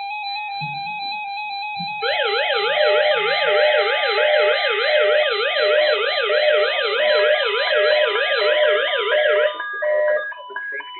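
Weather alert radios sounding their alarms for an incoming Child Abduction Emergency alert. A steady alert tone is joined about two seconds in by a loud siren-like warble sweeping up and down about three times a second. Near the end the warble gives way to rapid beeping tones.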